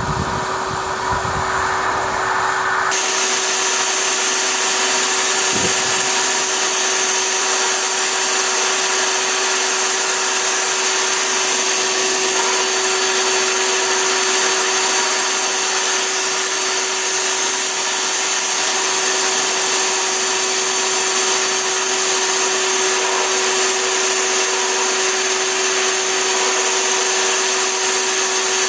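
An electric blower running steadily, forcing air into a glowing charcoal forge: an even rush of air over a constant motor hum. For the first few seconds wind rumbles on the microphone, then the sound cuts to the blower and air alone.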